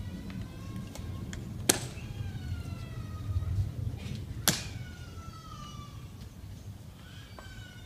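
Two sharp clicks about three seconds apart, the Tomb sentinel's heels striking during the guard's drill. Under them runs a high whine that keeps sliding down in pitch.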